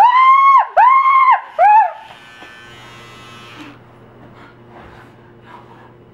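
A man gives three loud, wailing cries in the first two seconds. An electric mustache trimmer then buzzes quietly with a low steady hum.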